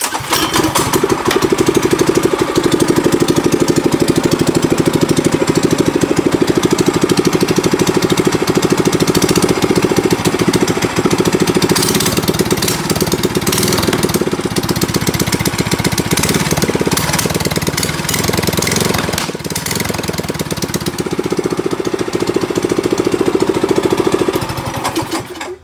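Mini bike's small single-cylinder four-stroke engine with a straight-pipe header, running loud and rapid-firing with small rises and dips in pace, then cut off just before the end.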